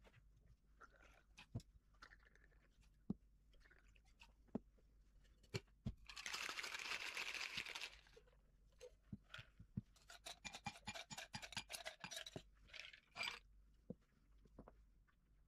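Stainless steel bar tools handled: scattered light clinks from the jigger and shaker tin, then about two seconds of a metal cocktail shaker shaken hard with ice about six seconds in. A couple of seconds later comes a run of rapid ice clinks and clatter against glass.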